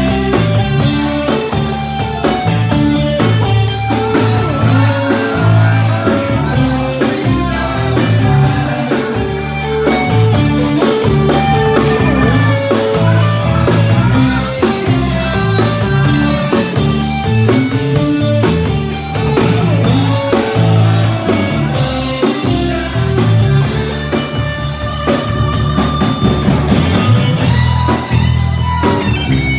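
Live band playing rock music loudly, with guitar and drum kit and a man singing into a microphone.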